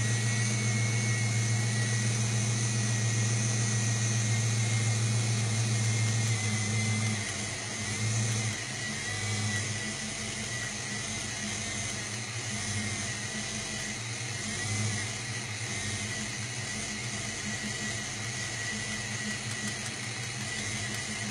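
Ford Mustang 5.0L V8 running at idle, steady at first. About seven seconds in it turns quieter and uneven. This is the stumble of an engine with a bad or loose TFI ignition module.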